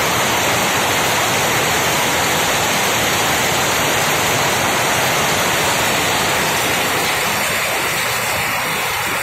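Steady, dense din of jute looms and mill machinery running in a weaving shed, their clatter merged into a continuous roar that eases slightly near the end.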